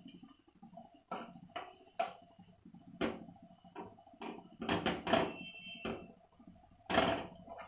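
A spatula stirring melting jaggery syrup in a nonstick saucepan, scraping and knocking against the pan in irregular clicks and scrapes.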